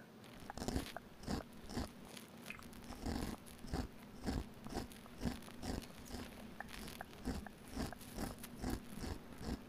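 Razor dragged in short scraping strokes close to the microphone, mimicking shaving, about two strokes a second in a steady rhythm.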